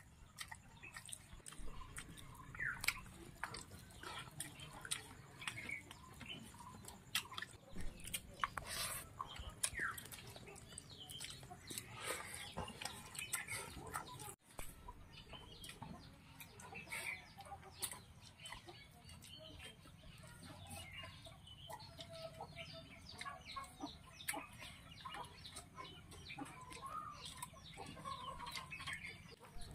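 Chickens clucking, with faint scattered clicks and mouth sounds from eating rice by hand.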